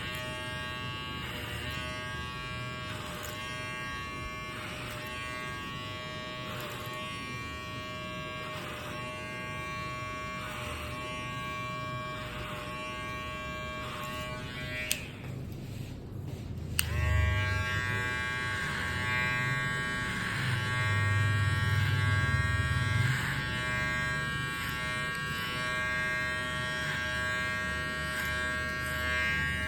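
Electric hair clipper buzzing steadily as it cuts hair, its sound swelling briefly about every two seconds. About halfway through it is switched off for roughly two seconds and comes back on with a click.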